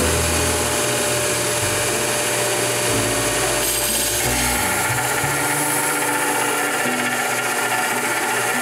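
Narrow belt sander running, with a steel double-bit axe head pressed against the belt to grind its cutting edge: a steady rasping grind that turns harsher about four seconds in as the steel bites and throws sparks.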